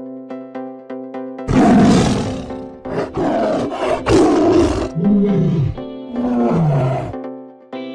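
Tiger roaring several times over steady background music: two loud roars starting about a second and a half in and about three seconds in, then two lower calls that fall in pitch.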